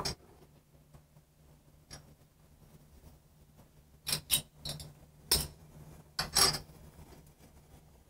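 Glass and metal lab apparatus being handled: a faint click, then a cluster of sharp clicks and knocks as a glass test tube is adjusted in a metal clamp on a ring stand. A low steady hum runs underneath.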